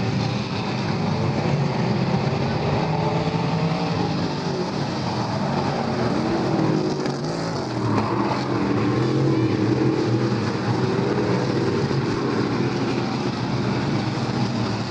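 Several dirt-track race car engines running hard around the oval, their pitch rising and falling as the cars go through the turns.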